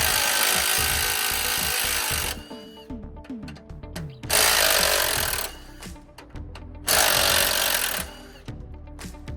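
Impact wrench run in three bursts, spinning bolts out: a long one of about two and a half seconds, then two shorter ones of about a second each.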